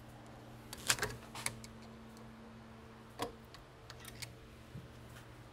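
A few light metallic clicks and taps from the rusted Krag-Jorgensen rifle action and tools being handled, the loudest about a second in, over a steady low hum.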